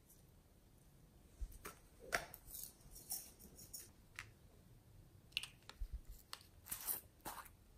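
Small plastic toy containers being handled: scattered light clicks and taps of plastic, with a couple of brief scraping sounds.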